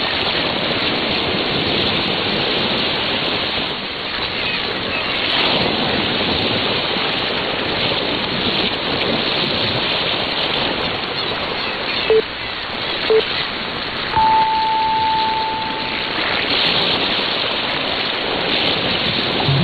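Ocean surf sound received over AM medium-wave radio: a steady rushing wash with slow swells, band-limited like an AM broadcast. About twelve seconds in come two short beeps, then a long higher beep about a second later, the pattern of a radio time signal.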